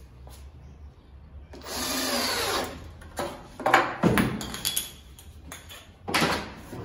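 A small cordless drill-driver runs for about a second, driving a screw into a metal telescopic drawer slide. A few sharp knocks follow as wooden spacer blocks are pulled out and drop. A second short burst comes near the end.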